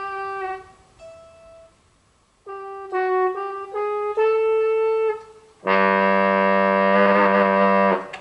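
Electric guitar played through a guitar synthesizer set to a trombone patch: a held note ends about half a second in, then a few short notes, then a loud sustained chord of several brass voices from about six seconds in that cuts off just before the end.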